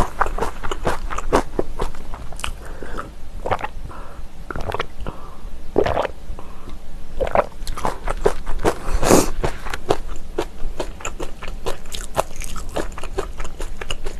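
A person chewing a mouthful of kimchi with rice and seaweed: a quick, irregular run of short crunches and mouth sounds.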